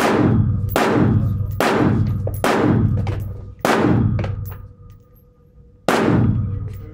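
Six rifle shots fired one after another, about one a second for the first five, then a pause of some two seconds before the sixth. Each shot rings out with a long echo in the concrete hall of an indoor range.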